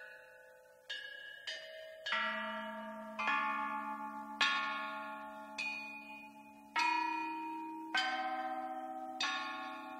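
Music of bell-like struck notes, a slow melody with one ringing, slowly decaying note every half second to second and a half, over low held notes that come in about two seconds in and shift pitch twice.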